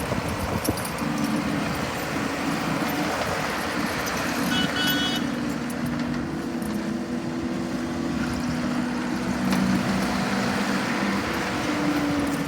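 John Deere 323 skid steer's diesel engine running steadily, with a brief high beep about four and a half seconds in.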